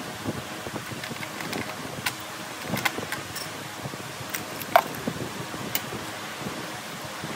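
Scattered metallic clicks and clinks of hand tools at work on a car's starter, with one louder ringing clink about five seconds in, over steady background noise.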